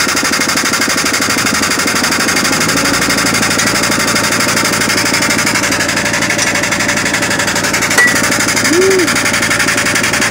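An engine running steadily with a fast, even pulse while a crawler's track pin is pressed back into its link. About eight seconds in, a single sharp pop: a washer popping under the pressing force.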